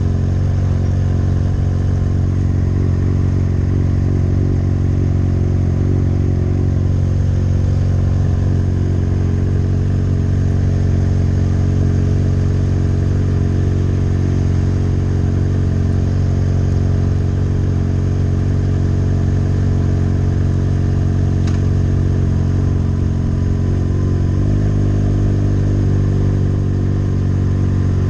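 Yamaha R6's inline-four engine running steadily at cruising speed, holding one even note; the note changes slightly about 24 seconds in.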